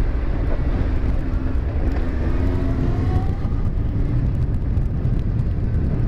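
Motorcycle riding sound from a Yamaha FZ1's inline-four: a steady low rumble of wind and engine on the microphone, with the engine note rising briefly a couple of seconds in.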